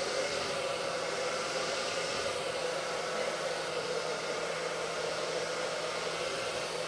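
Handheld hair dryer running steadily: an even rush of blown air over a low motor hum.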